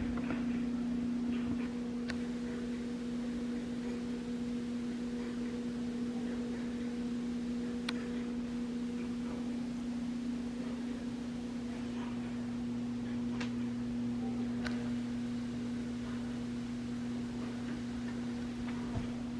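A steady low hum on one pitch, with a fainter overtone, and a few faint clicks scattered through it.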